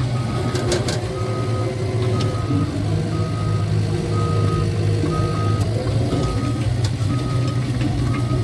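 Cat bulldozer backing up: its reverse alarm beeps about once a second over the steady drone of the diesel engine, with scattered sharp clanks from the steel tracks.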